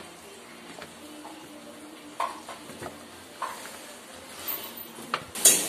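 A few light knocks and clicks of kitchen handling over a faint steady hum, then near the end a loud hiss of food frying in a pan breaks in.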